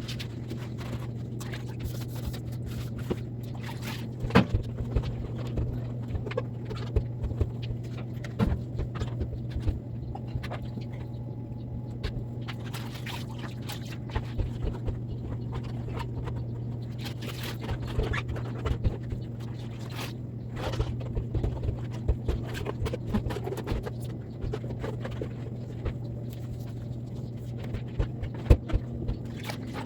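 Hands-on cleaning of a fridge's inside: irregular scraping and scrubbing with frequent knocks and clicks of things being handled, over a steady low hum.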